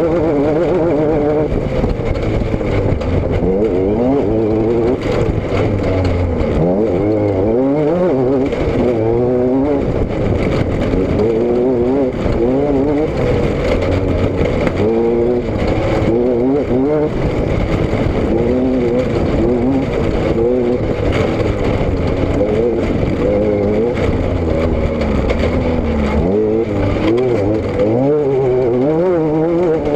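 A car engine and exhaust under way, the pitch repeatedly climbing as it accelerates and dropping back at each gear change or lift-off, with road and wind noise beneath.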